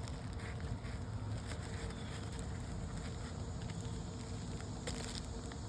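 Light rustles and faint taps of an asphalt 3-tab shingle being slid and pushed into place under the course above, over steady outdoor background noise, with a slightly louder brief scrape about five seconds in.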